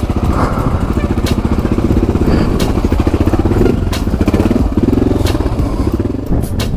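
Honda XR650's single-cylinder engine running at low revs in a steady firing pulse, its pitch rising and falling under the throttle, with several sharp knocks from the bike working over rough trail.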